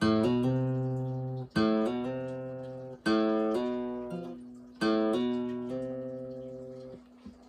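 Acoustic guitar played fingerstyle: the open A string plucked with hammered-on notes from the fretting fingers. Four plucked attacks come about a second and a half apart, and each is left to ring and fade.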